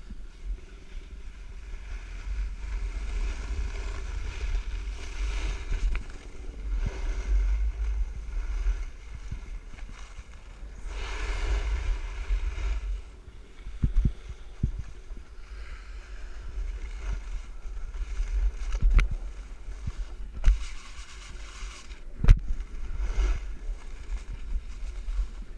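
Wind buffeting a helmet camera's microphone as a steady low rumble, with the hiss and scrape of edges sliding over packed, groomed snow that swells and fades with each turn. A few sharp knocks come through in the second half.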